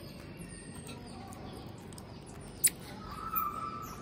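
Common marmosets giving many short, very high-pitched squeaky calls, with one sharp click about two and a half seconds in.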